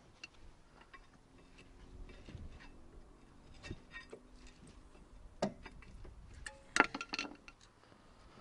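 Mini Cooper R55 rear brake pads being prised out of the caliper carrier with a screwdriver: scattered light metallic clicks and scrapes, with a few sharper clicks in the second half.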